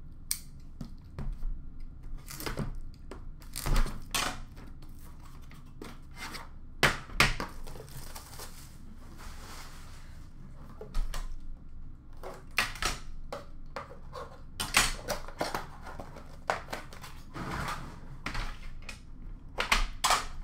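Cardboard box and its plastic wrap being cut with a knife and torn open, with crinkling and a longer tearing stretch about halfway through. Irregular knocks and clatters as the metal card tin inside is pulled out and set down on a glass counter.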